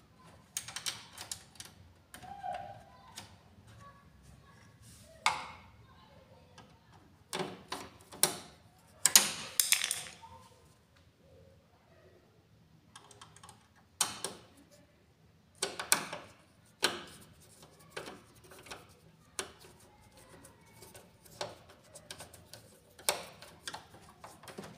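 Irregular plastic clicks, taps and knocks as a laser printer's plastic cover parts are handled, fitted and snapped into place, with a cluster of louder knocks about eight to ten seconds in.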